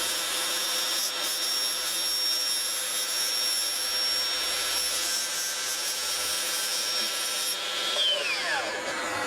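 Electric saw running with a steady high whine, then the motor and blade winding down, the whine falling in pitch, about eight seconds in.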